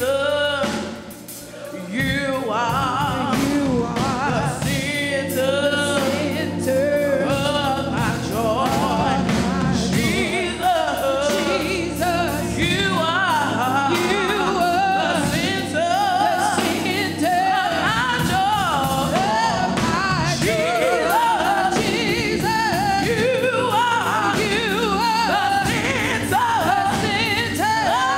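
A woman singing a gospel solo into a handheld microphone, amplified over a sound system, with long held notes and wavering vibrato over instrumental backing with a steady bass line. The music drops briefly about a second in, then carries on.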